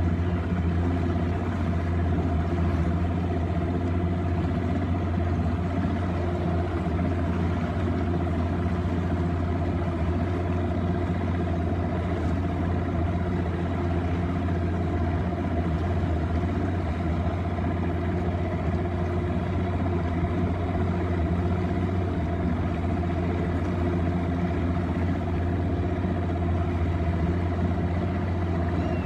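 An engine running steadily at a constant speed: an even low hum with a few fixed higher tones over it.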